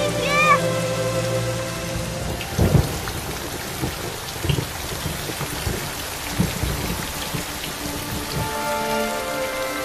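Heavy rain pouring steadily, with a thunderclap about three seconds in and several smaller thunder rumbles after it. Soft music fades out at the start and comes back near the end.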